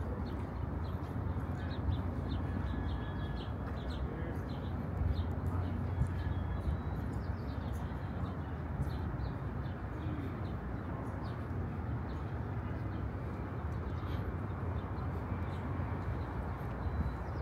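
Outdoor city ambience: a steady low rumble of urban background noise, with faint distant voices and a few short bird chirps in the first few seconds.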